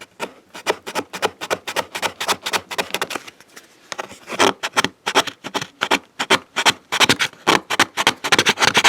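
Quick, repeated scraping strokes, several a second, as softened battery adhesive is scraped off the anodized aluminium inside of a MacBook Pro's case. There is a brief lull a little before the middle.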